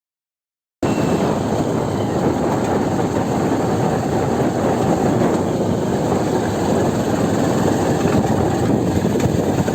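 Motorcycle riding noise: wind buffeting the microphone over the running engine, a dense steady noise that starts abruptly about a second in after dead silence.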